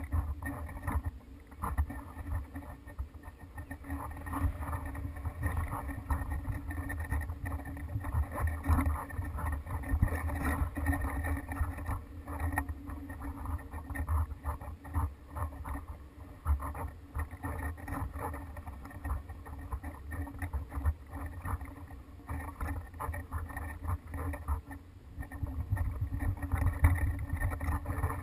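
Wind buffeting a GoPro's microphone as it hangs from a kite aerial photography rig: a gusting low rumble that swells and fades, with a fast crackling rattle over it.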